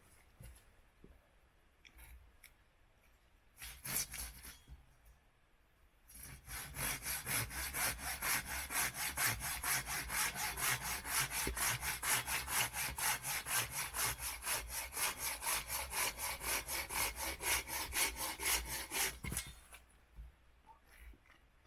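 Hand saw cutting through wood in steady back-and-forth strokes, about three a second, starting about six seconds in and stopping near the end. A brief scrape comes about four seconds in.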